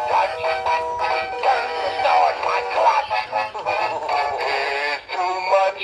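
Music with singing played through an animated snowman toy's small built-in speaker: a custom sound track loaded into the toy.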